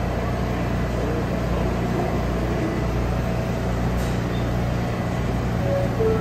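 R160 subway train standing in the station with its doors open, its air conditioning and onboard equipment giving a steady low hum.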